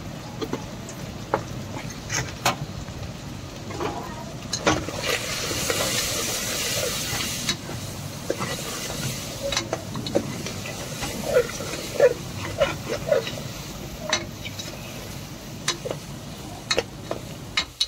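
Mutton pieces sizzling in oil in a pressure cooker while a metal spoon stirs them, clicking and scraping against the pot; the sizzle grows louder for a couple of seconds in the middle.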